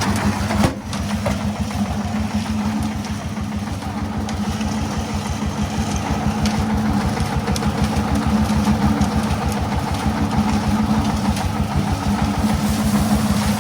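Single-cylinder diesel engine of a công nông farm truck running steadily at idle with a fast, even chug. There is a short knock about a second in.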